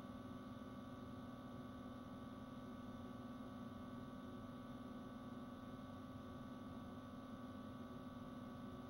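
A faint, steady hum made of several constant tones, with no change and no other events.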